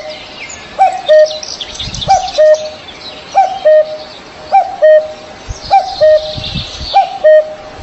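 A bird repeating a low two-note call, a short down-slurred note followed by a flat one, about seven times at even spacing of a little over a second, while smaller birds chirp higher up.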